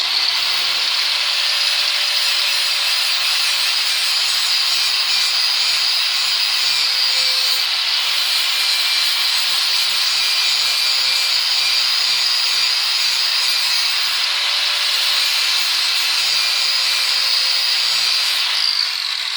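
Power grinder grinding the bevel of a high-carbon steel karambit blade: a loud, steady, hissing grind of steel on the abrasive that eases off near the end.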